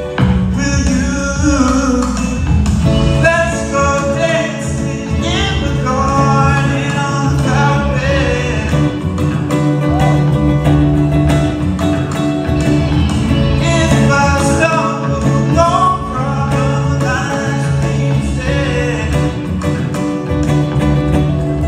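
A young man's voice singing a song over an electric guitar played through a Fender combo amplifier.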